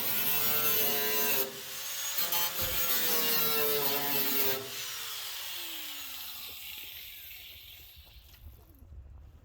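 Angle grinder cutting into the car's steel body, its pitch wavering as it works. It is switched off about four and a half seconds in and winds down with a falling whine.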